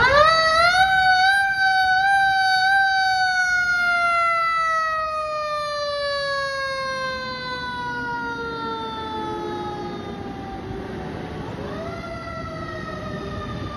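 Fire truck siren on a ladder truck leaving its station. The siren rises quickly in pitch at the start, falls slowly over about ten seconds, then rises again near the end and begins to fall.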